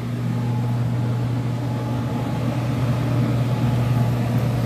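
Air handler's blower fan running with a steady low hum and a rush of air, switched on by the thermostat's fan-on-continuously setting. It grows louder over the first second, then holds steady.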